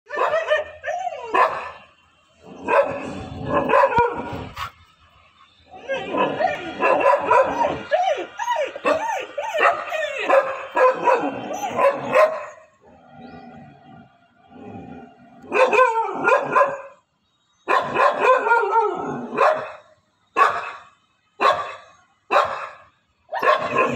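Dogs barking and yelping in bursts at monkeys, with a long unbroken stretch of barking in the middle and single barks about a second apart near the end.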